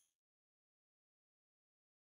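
Silence.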